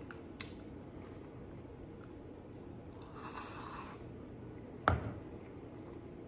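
Faint eating sounds from a man chewing noodles, with a brief slurp from a small bowl held to the mouth about three seconds in. Near five seconds there is a single sharp knock as the bowl is set down on the table.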